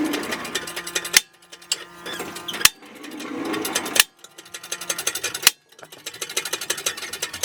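Rapid, dense mechanical clicking as a new rear suspension bushing is pressed into its housing. The sound breaks off abruptly four times, each time with a sharp click, about every second and a half.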